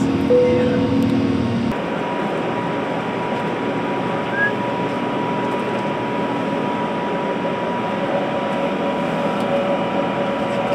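Steady cabin noise inside an Airbus A380 airliner, the rush of cabin air and engines with a faint steady whine. A lower rumble drops out abruptly about two seconds in.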